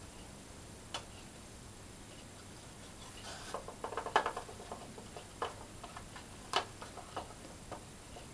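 Light clicks and rustles of a thin card favour box being handled and folded, with a quick flurry of clicks about halfway through and single sharp clicks before and after it.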